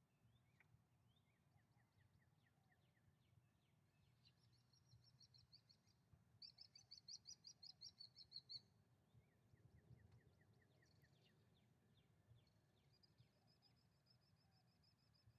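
Faint birdsong: small birds giving series of quick, high, repeated chirps, loudest as a rapid trill of about ten notes in the middle, over a low steady background hum.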